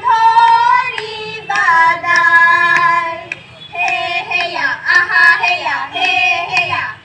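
Young women singing through a microphone and PA loudspeaker, with long held high notes in the first three seconds and then a moving melody.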